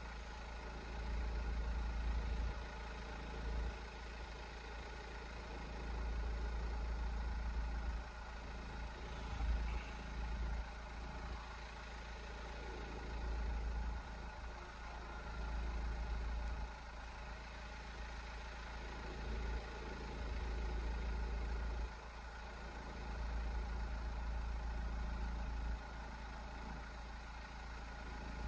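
An engine idling steadily, its hum holding an even pitch, with a low rumble that swells and fades every few seconds.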